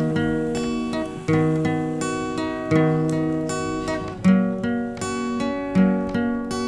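Background music: acoustic guitar strummed in slow chords, a new chord about every second and a half.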